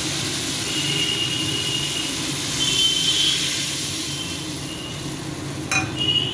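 Hot mustard oil and spice paste sizzling in a steel kadai as water is poured in from a glass, the sizzle swelling about three seconds in, with thin high tones coming and going and a sharp click near the end.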